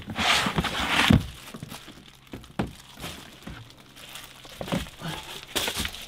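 Plastic crinkling and rustling, with a few knocks and thuds, as storage totes are shifted into place. The loudest rustling is in the first second, with another burst near the end.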